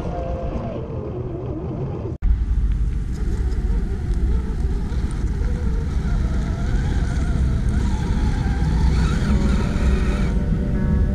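Background music for about two seconds, then a sudden cut to a scale RC crawler on an Axial SCX10 chassis climbing a rocky dirt slope. Its electric motor and drivetrain whine, rising and falling with the throttle, over a steady low rumble.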